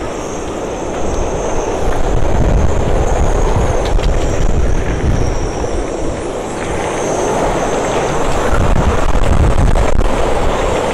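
Storm-force wind buffeting the microphone with a heavy low rumble, over a steady rushing hiss of wind and driving rain.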